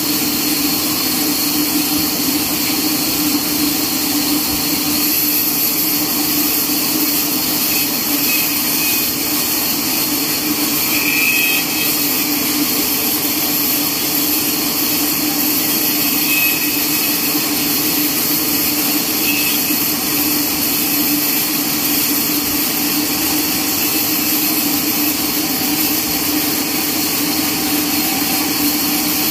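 Horizontal band sawmill running steadily as its blade cuts lengthwise through a neem log on the moving carriage, a constant hum with a hiss over it.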